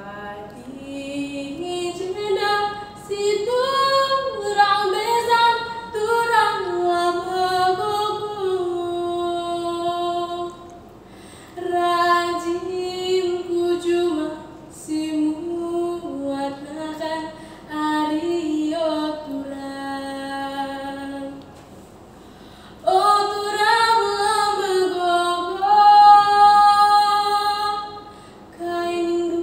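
A young girl singing solo in long, sustained phrases, breaking off briefly about ten, fourteen and twenty-one seconds in before a strong phrase picks up again around twenty-three seconds.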